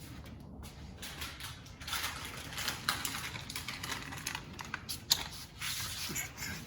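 Rapid small plastic clicks and scraping from a car door's courtesy-light fitting being worked loose from the door panel, with one sharp click about five seconds in.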